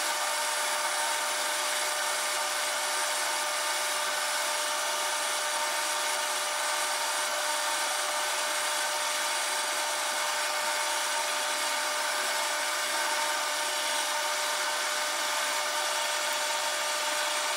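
Metal lathe turning an aluminium bar under power feed, a carbide insert taking a cut lubricated with cutting oil. It is a steady, even running sound: a cutting hiss under several steady tones from the lathe's drive.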